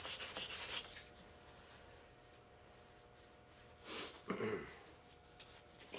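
Sandpaper rubbing on the plastic model's edge for about the first second, then a quiet room with a faint steady hum. About four seconds in there is a short breath and a brief low vocal sound.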